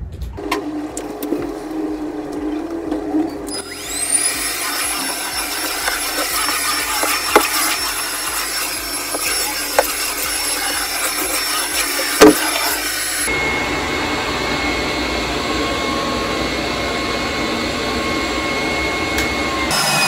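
Puppyoo T12 Home Rinse cordless stick vacuum, fitted with its wet-mop brush head, spins up with a rising whine a few seconds in and then runs steadily across the floor. Its tone shifts about two-thirds of the way through. A few sharp knocks come from the head bumping as it is pushed.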